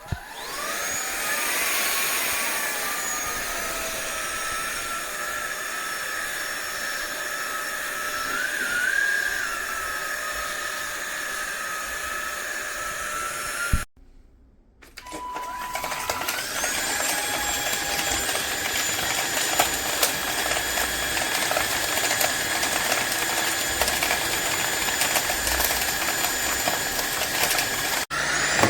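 SunSare cordless stick vacuum's motor spinning up to a steady high whine. About halfway through it is switched off with a click, and after a moment it gives a short beep and spins up again to run steadily.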